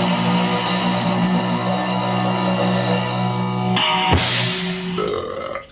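Rock music with drums and guitar as a show's intro theme. It breaks off almost four seconds in with a last loud hit that dies away.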